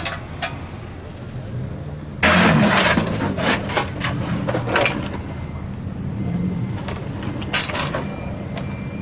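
A lowered car's engine running steadily. About two seconds in, a sudden loud, harsh crackling noise breaks out and lasts about three seconds. A shorter burst comes near the end.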